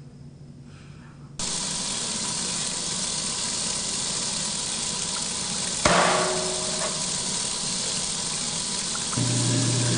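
Water gushing steadily from a tap, starting suddenly about a second and a half in. A single sharp clink with a short ring comes about six seconds in, and a steady low hum begins near the end.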